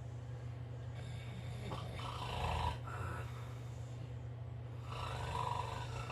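A dog snoring in its sleep: two long snoring breaths about three seconds apart, over a steady low hum.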